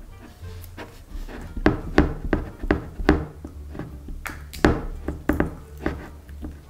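Irregular sharp knocks and clicks, about a dozen, from slime-making at a table: a spoon knocking and scraping against a glass bowl while stirring slime, and a plastic glue bottle being squeezed and handled.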